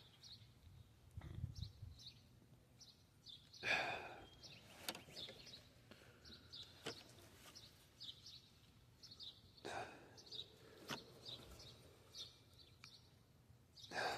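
Faint bird chirps scattered through a quiet background, with a few soft knocks.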